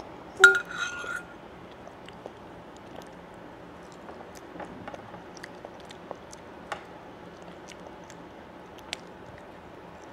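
A toddler chewing and eating noodles, with small scattered mouth clicks and smacks. About half a second in there is one loud clink with a short ring, like a metal fork striking the glass dish.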